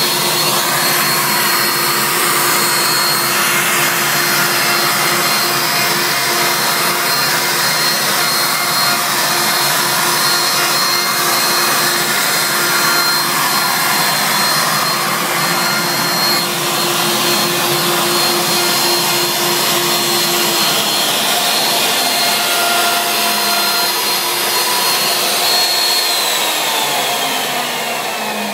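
CNC router's spindle motor running at high speed with its bit cutting into a wooden board, a steady high whine over the rush of the cut. Over the last few seconds the pitch slides down and the sound fades as the motor spins down.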